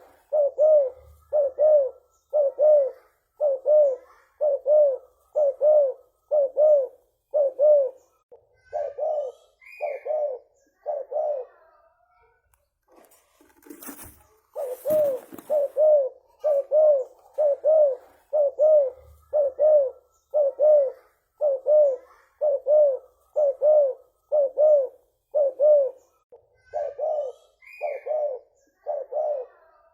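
Spotted dove (tekukur) cooing on and on in a long, even run of short low coos, a little over one a second, breaking off for about two seconds midway. A brief rustle comes just as the cooing resumes.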